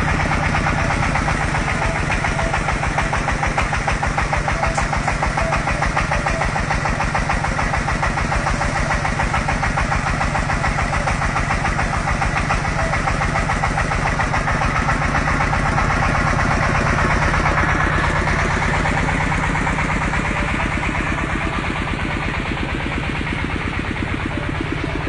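Engine of an industrial drilling machine running steadily, with an even, rapid pulsing.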